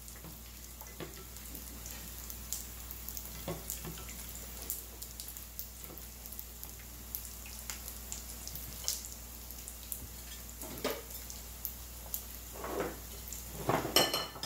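Plantain slices shallow-frying in hot oil: a steady sizzle with many small crackles and pops. A few louder knocks come near the end.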